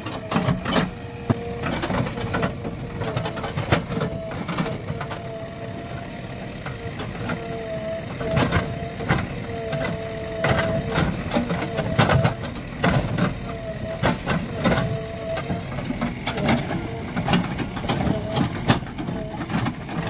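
JCB 3DX Plus backhoe loader digging with its backhoe arm: the diesel engine runs under load with a steady whine that breaks off and returns every second or two as the arm is worked. Frequent sharp knocks and clanks come from the bucket biting into and scooping the soil.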